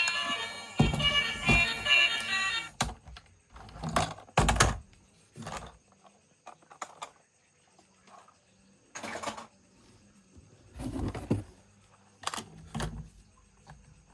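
A battery-powered toy's electronic sound effect cuts off about three seconds in, followed by scattered knocks and clatter of plastic toy vehicles being handled.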